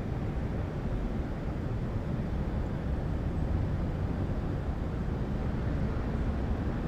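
City ambience: a steady low rumble of traffic, with no single event standing out.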